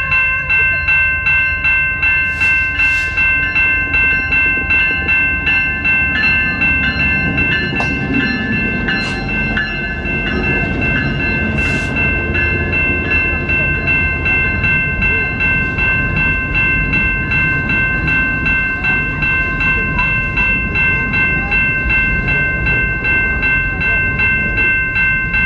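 A bell ringing steadily at about two strikes a second over the low rumble of a train. There are a few short hisses in the first twelve seconds.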